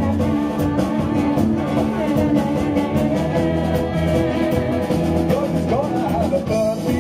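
Live band playing an upbeat song with a steady beat.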